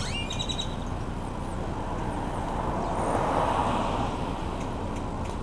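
A vehicle passing by: a broad rushing noise that swells to a peak about three and a half seconds in and then fades, over a steady low background rumble. A few short bird chirps sound at the very start.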